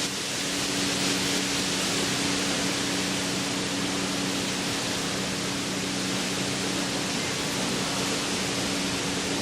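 Hurricane wind and rain, a steady dense rush with no let-up, over a low steady hum.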